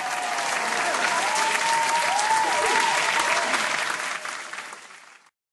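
Crowd applauding and cheering, with rising-and-falling cheers in the middle; it fades in and fades out before the end.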